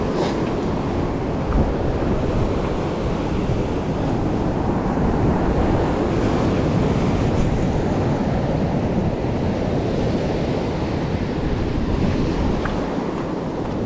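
Sea surf breaking and washing over a rocky shore, a steady rush of water, with wind buffeting the microphone.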